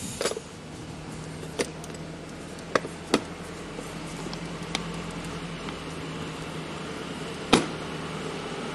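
A steady low mechanical hum, setting in about a second in, with several sharp clicks and knocks scattered through it; the loudest knock comes near the end.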